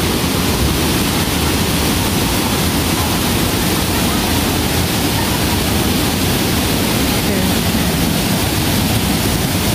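A river rushing steadily, with an even, loud hiss of flowing water.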